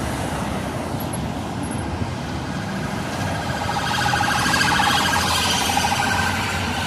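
Road traffic passing on a main road: lorries and cars going by. It is loudest about four to five seconds in as a skip lorry passes close, its engine giving a steady tone over the tyre noise.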